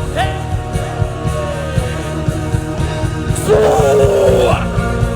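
Live worship band music: steady drums and bass, with a long held note gliding slowly downward, then a loud rough sung cry about three and a half seconds in.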